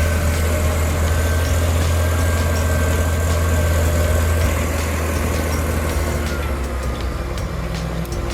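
Heavy bulldozer's diesel engine running with a steady low drone, easing slightly about halfway through.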